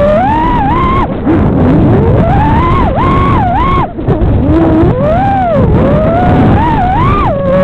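FPV drone's brushless motors whining over a rough rush of prop wash. The pitch swings up and down every second or so as the throttle is worked.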